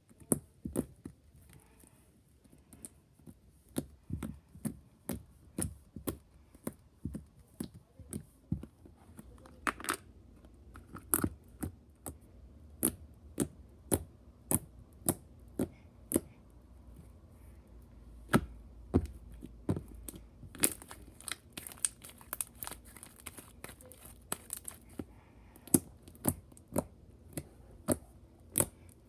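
White glue slime being squished and stretched by hand, giving sharp, sticky pops and clicks about once or twice a second at an uneven pace.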